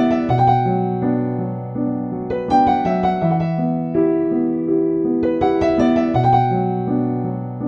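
Calm background music played on piano, slow sustained chords that change about every two seconds.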